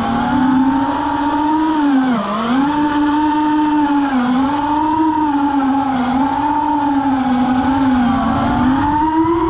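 FPV quadcopter's four Emax 1606 3300kv brushless motors spinning HQ 3-inch three-blade props, heard from the onboard camera: a steady whine whose pitch rises and falls with the throttle, dipping sharply about two seconds in.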